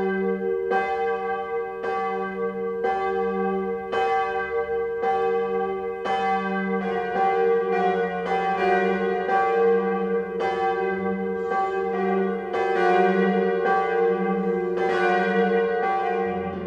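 Church bells ringing. A single bell strikes about once a second, each stroke with a long hum, and the strokes come faster as another bell joins about six seconds in.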